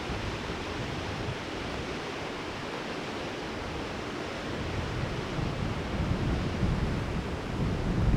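Strong wind blowing with a steady rush, gusts buffeting the microphone and growing stronger and more uneven from about halfway through.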